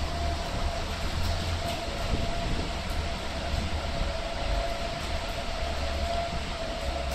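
Sydney light-rail tram running slowly as it arrives at a station: a steady rumble with a thin, continuous whine over it.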